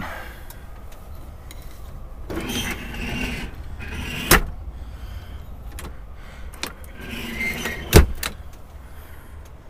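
Upper berth of an Amtrak Superliner roomette being pulled down by hand: rustling and sliding, a sharp latch click a few seconds in, then more rustling and a loud knock near the end as the bunk comes down into place. A steady low rumble sits under it all.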